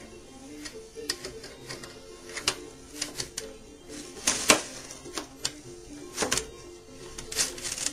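Irregular sharp clicks and taps from hands working a new banjo head down onto the rim and its metal hardware, with the loudest clicks about halfway through and again near the end. Soft background music with held notes plays underneath.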